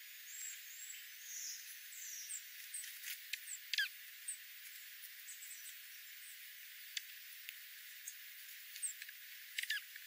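Small songbirds feeding on the ground, giving short high chips and squeaky twitters, with one falling note about four seconds in and scattered faint clicks.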